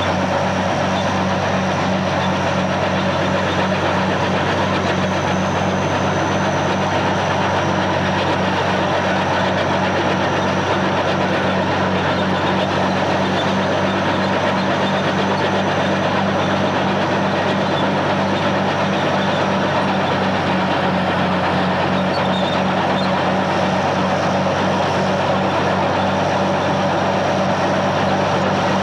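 Tank moving on its tracks, with the engine running steadily under the squeak and rattle of the tracks and a regular pulsing rhythm.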